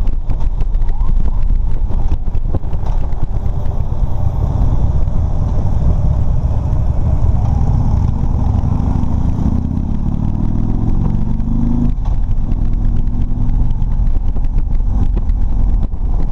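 Harley-Davidson touring motorcycle's V-twin engine running on the road, with wind noise on the microphone. Over a few seconds the engine climbs in pitch as the bike accelerates, then drops suddenly about twelve seconds in, as at an upshift, and runs on steadily.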